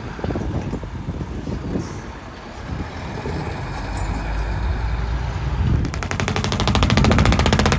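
Diesel box truck driving slowly past with a steady low engine rumble. About six seconds in, a louder engine sound with a rapid, even throb takes over.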